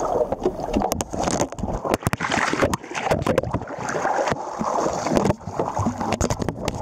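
Sea water sloshing and splashing close to the microphone, with irregular crackles and gusts of wind on the microphone.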